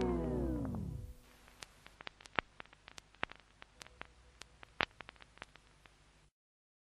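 A sustained chord of the music slows and slides down in pitch to a stop within about a second, like a tape or record stopping. Faint scattered clicks and crackle follow, with a few louder pops, then the sound cuts off to dead silence near the end.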